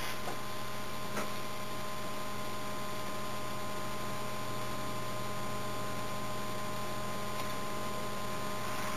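Steady electrical mains hum with a layer of hiss from the recording setup, with a faint click about a second in.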